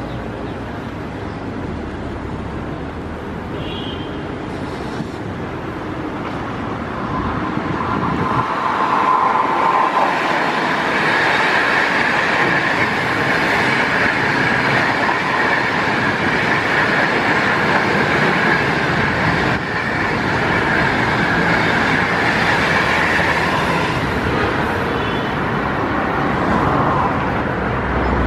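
An HXD1D electric locomotive and its string of passenger coaches passing at speed. The rolling noise swells about a third of the way in, then holds as a steady rush with a high whine over it while the coaches go by, and eases near the end as the train clears.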